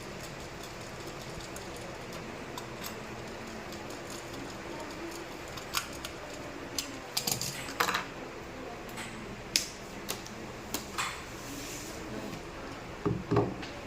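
Irregular sharp clicks and light clinks of small hard objects being handled, a few at a time, over a steady background hiss, with a louder couple of knocks near the end.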